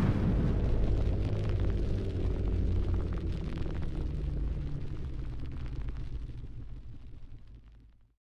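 Intro sound effect: a deep rumble with crackling that dies away steadily and fades to silence just before the end.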